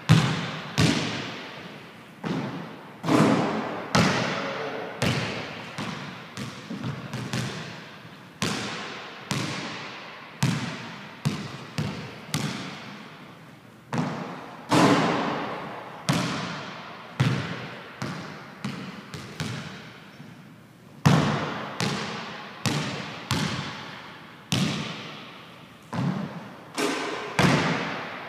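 A basketball bouncing on a hardwood gym floor: a string of sharp thuds, each echoing in the large hall. In several runs the bounces come closer and closer together as the loose ball settles.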